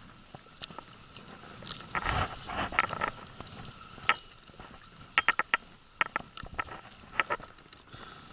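Baitcasting fishing reel being cranked to bring in a heavy hooked fish from an inflatable boat: a faint steady whine with scattered sharp clicks and knocks. There is a louder rustling stretch about two seconds in.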